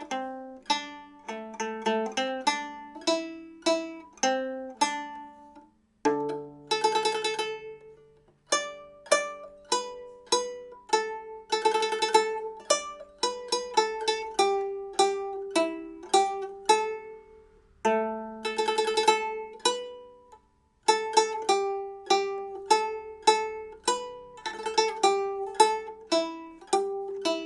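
A Nanguan pipa with nylon strings and bone frets playing a slow melody in single plucked notes, broken by several quick tremolo rolls. There are two short pauses, about six and twenty seconds in.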